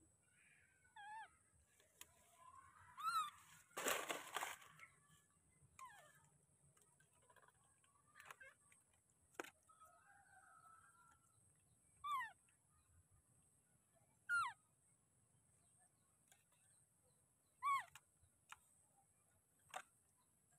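Baby monkey giving short, high, squeaky calls, about six of them spread out with pauses between. About four seconds in there is one loud brief crackle, like leaves or a twig being disturbed.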